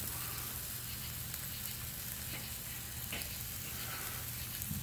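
Bratwurst sausages sizzling steadily on a charcoal grill grate over hot coals, with faint crackling.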